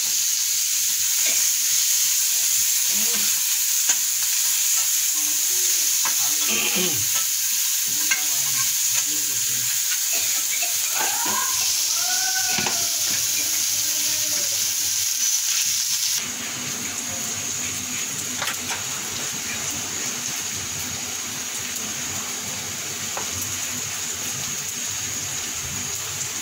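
Sliced onions frying in hot oil in a nonstick frying pan, a steady sizzle that cuts off abruptly about 16 seconds in, leaving a quieter steady hiss.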